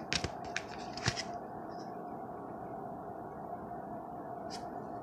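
Light plastic clicks and taps of a rigid toploader card holder being handled and turned over, several in the first second and a couple more near the end, over a steady background hum.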